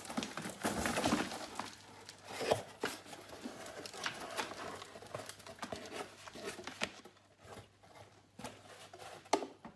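Cardboard box being tipped and shaken over a plastic tub, its paper egg-tray pieces rustling and scraping as they slide out, with scattered light taps and knocks. Busiest in the first three seconds, thinner after, with one sharper knock near the end.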